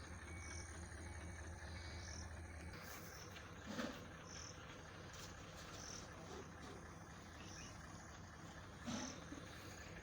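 Faint insects chirping, short high chirps repeating every second or so. A low hum underneath stops about three seconds in, and two brief louder sounds come about four and nine seconds in.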